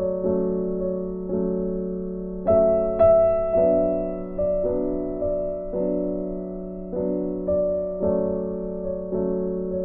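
Background piano music: slow notes and chords, each struck and left to fade, a new one about every half second to a second.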